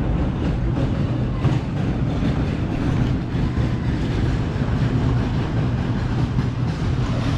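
Steady low rumble of running machinery, with a constant hum under a dense noisy haze.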